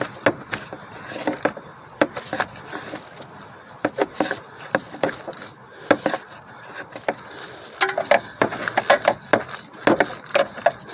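Irregular clicks and knocks of hand tools turning thermostat housing bolts down on the engine, coming faster near the end as the bolts start to bottom out.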